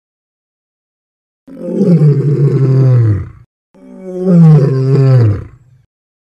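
Lion roaring: two long low roars, each falling in pitch, starting about a second and a half in and again about four seconds in, the second a little louder.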